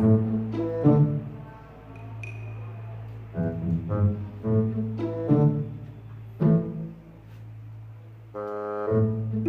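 Background music of low strings: a steady bowed bass drone with short plucked and bowed notes over it.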